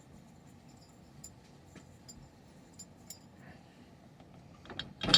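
Faint, scattered clicks and clinks of metal plumbing parts and tools being handled, with a louder cluster of knocks near the end.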